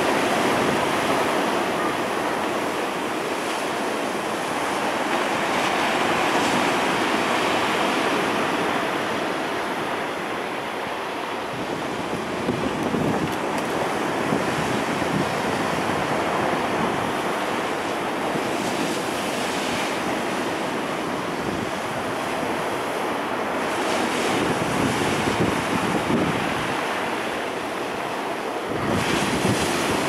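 Storm surf breaking on a pebble beach: a continuous rush of waves that swells and eases as each breaker comes in, with wind gusting on the microphone.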